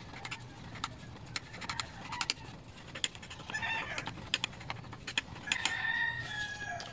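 Chickens in the background: a short cluck about halfway through, then a long held rooster-type call in the last second and a half. Under them runs a string of sharp light clicks and scrapes as a motorcycle reed valve block is rubbed on fine sandpaper.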